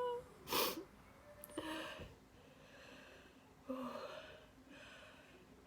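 A woman sniffs sharply about half a second in, then takes three drawn-out, breathy breaths through a runny nose that she is not allowed to blow.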